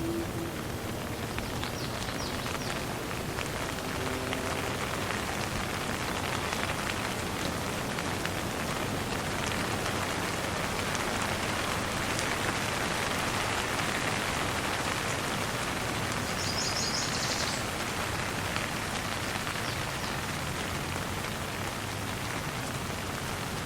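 Steady light rain pattering on a surface, an even hiss of drops with no clear thunder. About two-thirds of the way through there is a brief flurry of faint high chirps.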